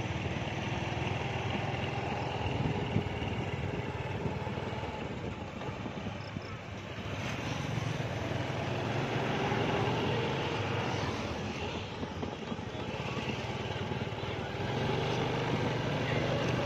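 A vehicle's engine running steadily along with wind and road noise while driving, swelling a little now and then.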